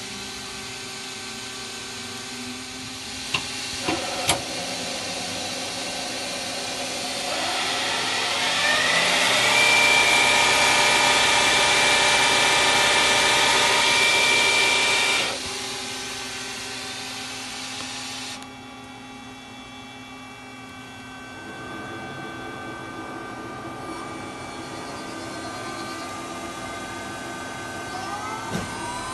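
Mazak SQT-100MY CNC turn-mill lathe running over a steady hum. A few sharp clicks come a few seconds in. Then a motor whine rises in pitch, holds a steady high tone for about five seconds and cuts off, leaving the lower hum.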